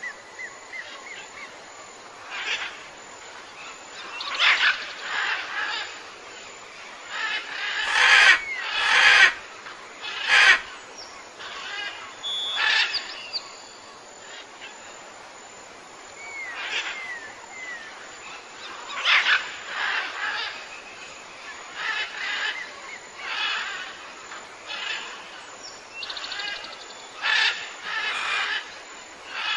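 Jungle ambience of birds calling in repeated bursts every second or two, with a few short whistled notes. The loudest, sharpest calls come about eight to ten seconds in.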